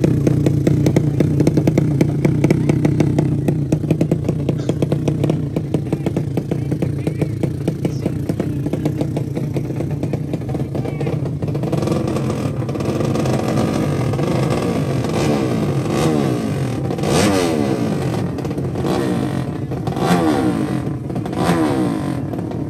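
Drag-racing motorcycle engines running hard at a steady high note, then from about halfway revving in repeated rising sweeps of pitch that drop back several times.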